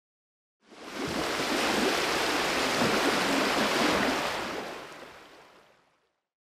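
Rushing water: a steady hiss that swells in about a second in, holds, then fades away before the end.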